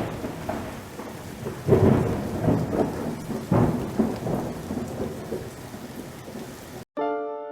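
Thunderstorm: steady rain with three loud peals of thunder about two seconds apart. It cuts off abruptly near the end, and piano music begins.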